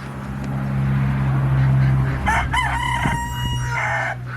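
A rooster crows once, about two seconds in: a call of nearly two seconds that rises at the start and then holds a long steady note before breaking off. A low steady hum runs underneath, loudest before the crow.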